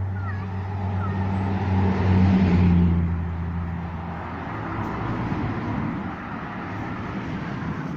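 A steady engine hum, swelling to its loudest about two to three seconds in and fading after about four seconds.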